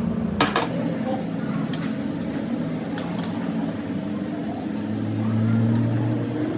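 Light metallic clinks and clicks of tools and metal parts being handled, over a steady machine hum that swells briefly near the end.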